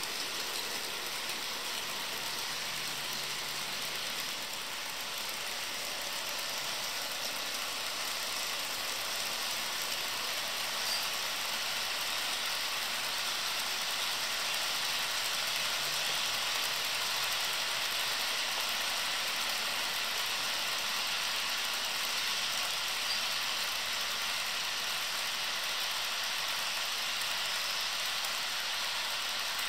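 HO scale model trains running on the track: a steady whirring of the locomotive motors and the rolling hiss of the wheels on the rails, slowly growing a little louder as the trains pass close.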